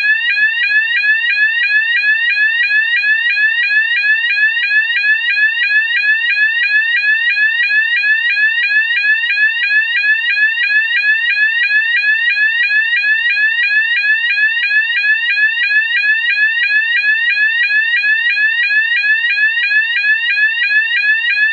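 GE AS363 fire alarm sounder sounding its 800 to 970 Hz sweep tone at three sweeps a second: a loud, steady, rapid run of rising warbles.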